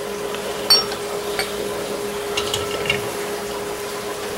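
Light metal clinks and knocks as a piston is worked into its bore in a Farmall Touch Control housing: one sharp clink under a second in, then a few lighter ones. A steady hum runs underneath.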